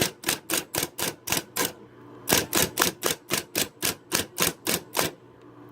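Brother L10 Plus 3 electric typewriter typing a row of keys, each key striking sharply at about four a second, with a short pause about two seconds in, over the steady hum of its motor.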